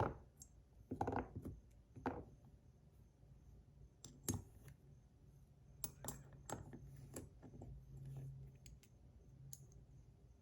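Scattered faint clicks and taps of small metal parts being handled, as tungsten buttons are fitted onto a metal fidget toy, with a few louder knocks in the first two seconds.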